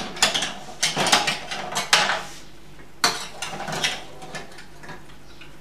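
Kitchen clatter: utensils and containers clinking and knocking on a worktop, in a dense run of clinks over the first couple of seconds and a second short flurry about three seconds in, then only faint handling.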